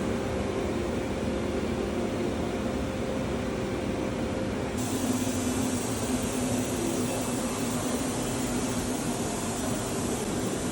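Milling machine cutting metal: a steady machining noise with a held spindle tone. The sound changes abruptly about five seconds in.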